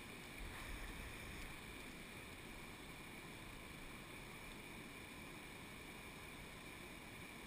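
Steady rush of a small mountain stream running over rocks and little cascades, heard faintly and evenly.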